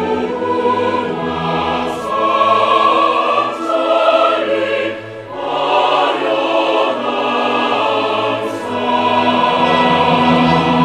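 Choral music: a choir singing slow, long-held phrases.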